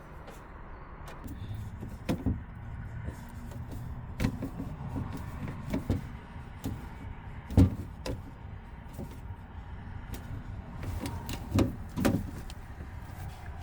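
A screwdriver driving screws to fix the diesel heater's exhaust pipe fitting to the van floor, with scattered clicks and knocks of tool and metal parts. The loudest knocks come near the middle and a pair near the end.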